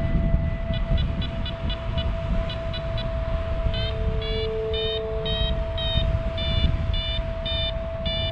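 Paragliding variometer beeping, the climb tone that signals rising air: quick faint beeps at first, then from about three and a half seconds in louder beeps at about two to three a second. Wind rushes over the microphone, and a steady tone hums underneath.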